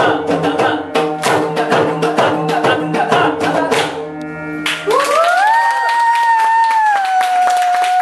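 Odissi mardala, a double-headed barrel drum, played in fast rhythmic strokes. About four and a half seconds in the drumming stops, and a single long high note glides up into place and is held to the end.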